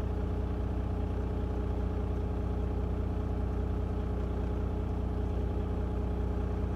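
Diesel semi-truck engine idling steadily, an even low hum.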